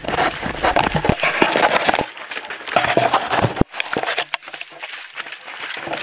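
A runner's footsteps scuffing and crunching on a dry, sandy trail, picked up close by a camera carried on the runner, with irregular knocks and rubbing. The sound turns abruptly thinner about two seconds in, and a single sharp knock comes a little later.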